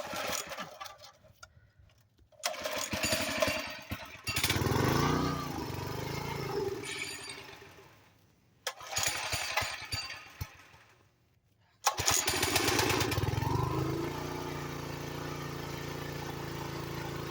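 Small engine of a two-man post hole digger being started: it fires and runs briefly several times, dying away each time, then catches about twelve seconds in, revs, and settles into a steady idle.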